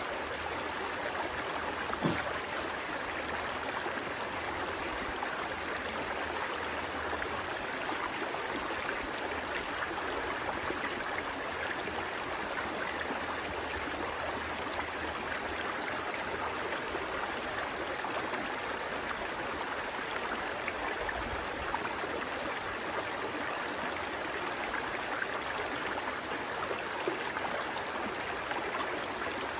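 Running water of a stream, a steady even rush with no let-up. A single small click about two seconds in.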